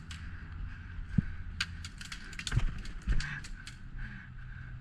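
Scattered short clicks and knocks, irregular and a few a second, over a steady low rumble and faint hiss.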